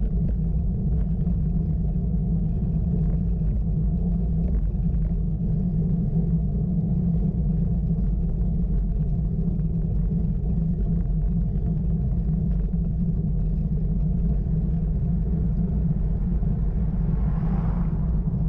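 Steady low rumble of wind buffeting the microphone of a camera riding on a road bike, mixed with road noise. A brief rushing hiss swells up near the end.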